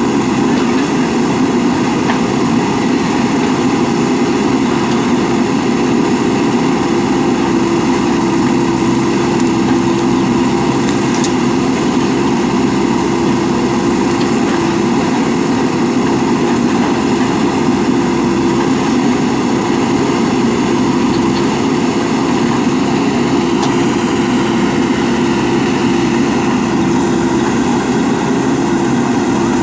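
JCB 3DX backhoe loader's diesel engine running steadily with an even hum and no big changes in speed.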